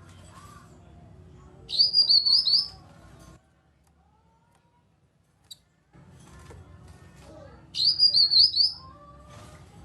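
Cucak kinoi calling: two loud phrases of quick, high chattering notes, each about a second long and some six seconds apart, over fainter bird calls. The calls stop for about two and a half seconds in the middle, broken by a single click.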